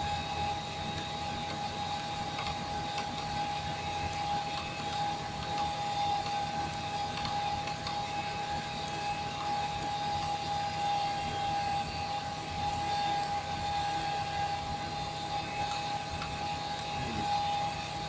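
Steady mechanical hum with a constant high whine in an aircraft cockpit, unchanging throughout.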